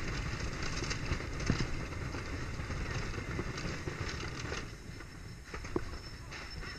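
Zippin Pippin wooden roller coaster train rumbling and clattering along its wooden track, heard from the back car; the noise eases about five seconds in.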